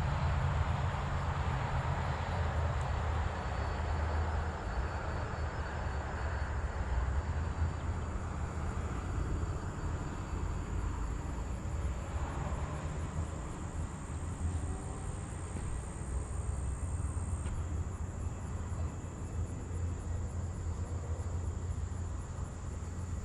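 ParkZone T-28 electric RC model plane in flight, its motor and propeller buzzing over a steady low rumble, with faint shifts in pitch as it passes.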